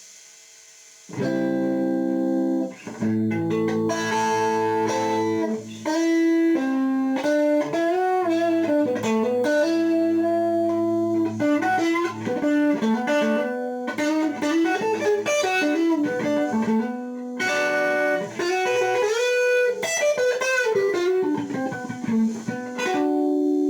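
Electric guitar played through a multi-effect pedal's compressor with the sustain at 100: a chord about a second in, then a lead line of long-held notes with string bends. The level stays even throughout, as the compressor holds the notes up.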